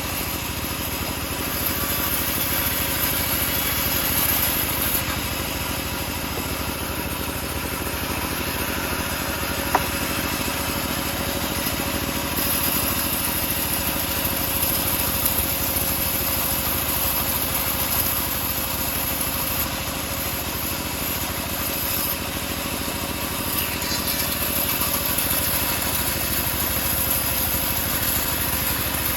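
Homemade bandsaw sawmill running steadily, its engine at a constant pace while it rips teak, with one sharp click about ten seconds in.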